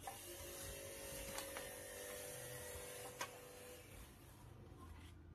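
Faint steady hiss and low hum, with a faint steady tone that fades out about four seconds in, and two soft clicks, about a second and a half and three seconds in.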